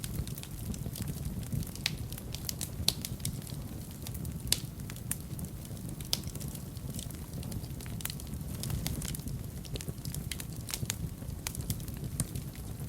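A fire burning in a fireplace, crackling with irregular pops and snaps over a steady low rumble of flame. A couple of sharper snaps stand out, about three seconds in and again at about four and a half seconds.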